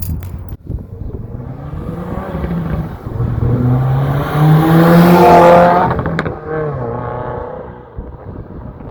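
Subaru WRX turbocharged flat-four pulling hard through a non-resonated midpipe exhaust: the exhaust note rises in pitch and grows to its loudest about five seconds in, then falls away just after six seconds.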